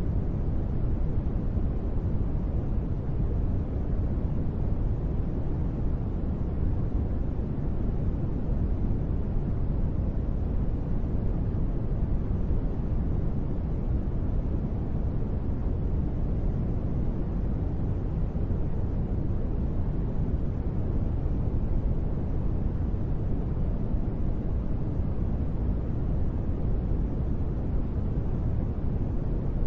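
Steady sleep-noise rain track: an even, deep, muffled rush with the highs rolled off and no separate drops or thunder, unchanging throughout.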